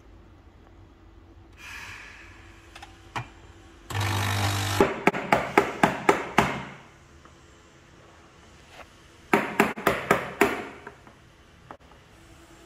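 Milk pitcher of freshly steamed milk tapped on a countertop in two runs of quick taps, about five a second, to knock out the large bubbles in the foam. A second of hiss comes just before the first run.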